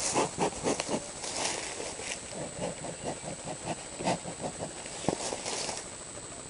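Irregular rustling with light knocks and scrapes of someone moving about and handling equipment, denser in the first second or so.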